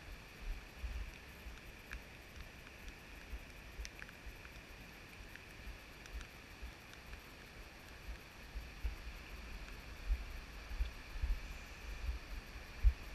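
Wind buffeting the microphone in uneven low gusts, with a few stronger gusts near the end. Beneath it runs the steady faint rush of the river in the gorge below.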